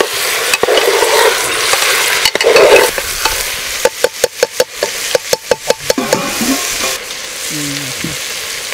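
Vegetables frying and sizzling in a pan while being stirred. In the middle come about a dozen quick stirring strokes against the pan, roughly six a second.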